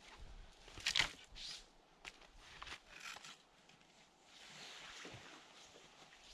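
Irregular crunching steps and rustling in snow, with a louder crunch about a second in.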